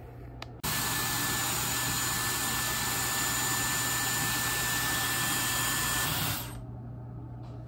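Dyson Airwrap hair styler running: a steady rush of blown air with a faint high whine. It switches on suddenly about half a second in and winds down about a second before the end.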